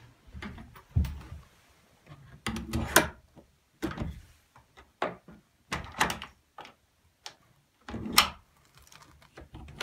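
A door being worked by its knob, opened and pushed shut several times: a series of knocks, thumps and latch clicks as the knob latch catches in the strike plate, now lined up after the door was re-shimmed.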